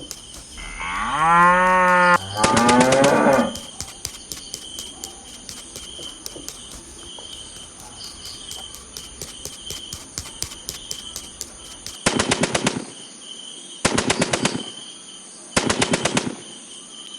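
A cow mooing twice near the start: the first moo rises in pitch and the second is pulsing. Later come three short bursts of rapid rattling clicks, each under a second long, spaced about a second and a half apart.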